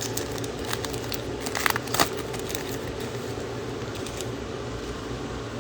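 Football trading cards and pack being handled, with a few short rustles and clicks about a second and a half to two seconds in, over a steady low room hum.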